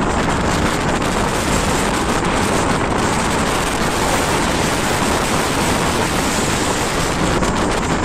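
Wind buffeting the microphone over the rush of sea breaking along a bulk carrier's hull: a loud, steady, unbroken noise.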